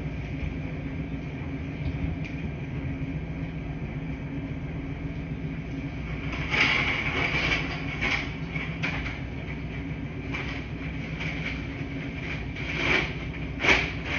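Laundry machine running with a steady low hum. From about halfway through, a few irregular clanks and rattles sound out above it, the loudest near the end.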